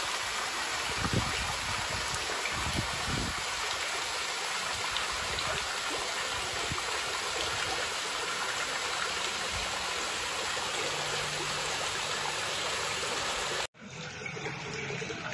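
Water running steadily at a pond, a continuous stream-like rush and trickle. It cuts off abruptly near the end, and a quieter, different sound follows.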